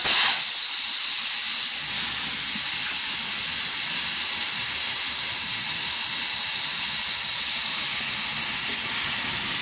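Compressed air hissing steadily and without a break.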